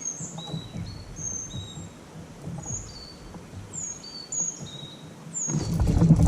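Birds calling with a string of short, high, downward-sliding chirps, about two a second. About five and a half seconds in, a louder low rumble of wind on the microphone sets in.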